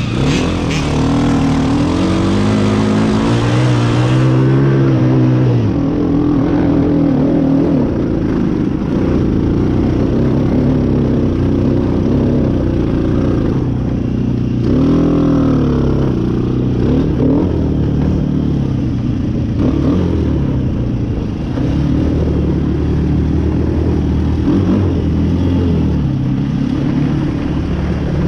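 Off-road vehicle engine running under changing throttle, its pitch climbing in the first few seconds and rising and falling sharply about fifteen seconds in.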